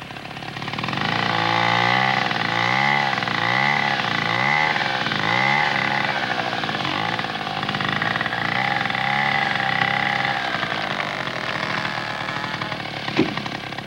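Two-stroke chainsaw running as it cuts timber, its engine speed rising and falling over and over. For the last few seconds it settles to a steadier, slightly quieter note.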